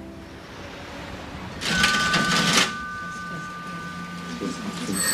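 Mechanical shop cash register being rung up. A short rattling clatter of the mechanism and drawer comes about two seconds in, and its bell keeps ringing for a couple of seconds afterwards.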